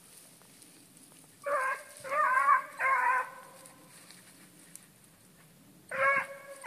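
A hunting hound baying in long, drawn-out calls: three in quick succession about a second and a half in, then another near the end. This is a hound giving voice on a rabbit's trail.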